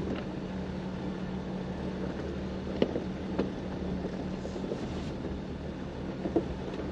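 Jeep engine running steadily at low speed while crawling a rocky off-road trail, with a few light knocks from the tyres and underbody on rock.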